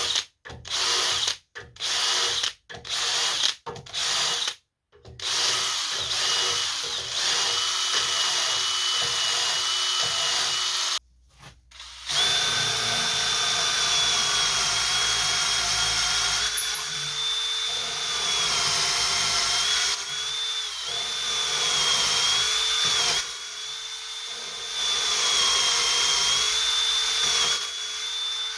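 Electric drill, first pulsed in short trigger bursts, then held on for long runs. Its whine sags briefly several times as the motor takes the load.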